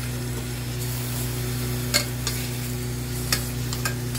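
Goat meat frying in oil in a pressure cooker while it is stirred, the metal spoon clicking against the pot a few times, the clearest about two seconds in and again past three seconds. The meat is being browned so its water dries off. A steady low hum runs underneath.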